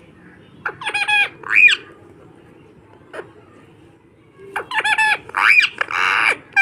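Parrot calling in short pitched calls: a group about a second in, then a longer run of calls starting near the middle and lasting to the end.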